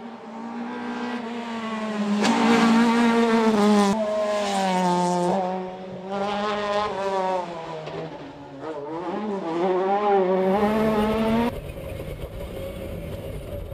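A rally car's engine revving as it passes through a bend, its pitch climbing and dropping again and again with throttle and gear changes. Near the end it cuts abruptly to the lower drone of the Mitsubishi Lancer Evolution IX's engine heard from inside the cabin.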